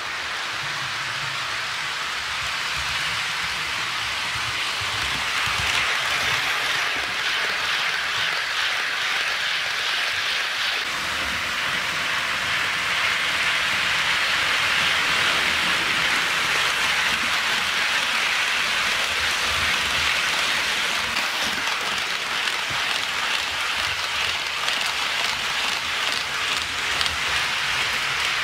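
HO scale model container train running on sectional track: a steady hiss from the wheels rolling on the rails, with a low motor hum underneath.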